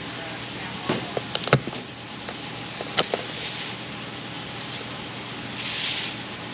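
Wire hangers clicking and snapping as they are fitted onto plastic hanging baskets: several sharp clicks in the first three seconds, the loudest about one and a half seconds in, over a steady background hiss. A short soft rustle follows near the end.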